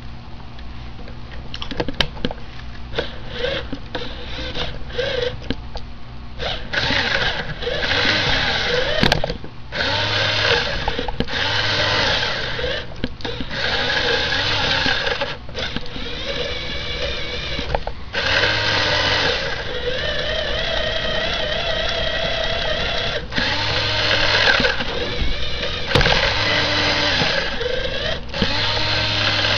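Lego Power Functions electric motor and plastic gears whirring as the buggy drives, switched on and off in repeated bursts of a second or two, with a wavering whine from the gear train.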